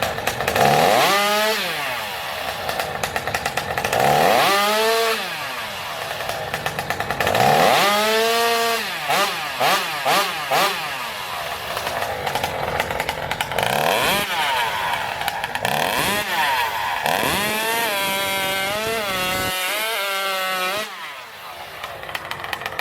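Two-stroke racing chainsaw revved up and down several times, its pitch climbing and falling with each blip of the throttle.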